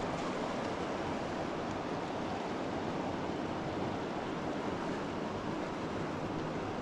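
Steady rush of river water, an even noise that holds at the same level throughout.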